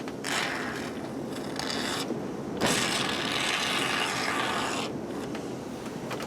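Aerosol can spraying in two hissing bursts of about two seconds each, the second louder and longer.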